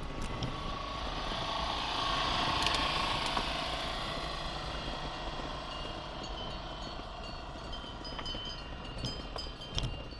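A 4x4 vehicle driving on a track: steady engine rumble and tyre noise, swelling about two to three seconds in and then easing off.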